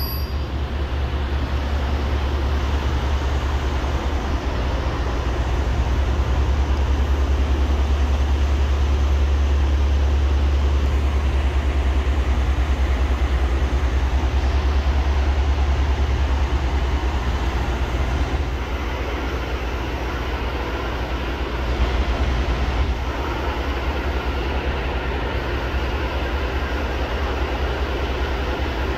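Subway track geometry car standing at a platform with its onboard machinery running: a steady, loud low hum under a wash of noise, a little louder for some seconds near the middle.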